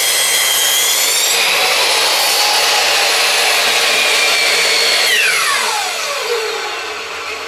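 Compound miter saw running at full speed with a steady high whine as it cuts a wooden board, then released about five seconds in, its motor winding down in a falling whine.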